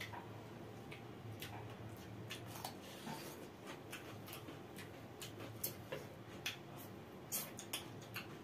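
Eating sounds: irregular soft wet clicks and smacks of chewing and of fingers mixing rice and curry on plates, with a few louder clicks in the second half.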